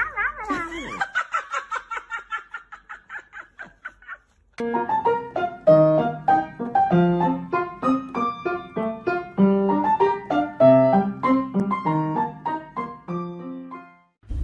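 A pug's high, quickly repeating little noises, about six a second and fading out over the first four seconds; then piano music for the rest.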